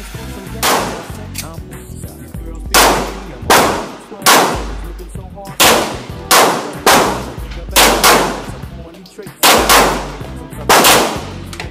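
A semi-automatic pistol fired about a dozen times at an uneven pace, some shots in quick pairs, each crack followed by a short ringing decay. Bass-heavy music plays underneath.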